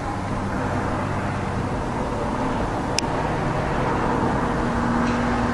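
Steady rumble of road traffic with a low engine hum, and one sharp click about three seconds in.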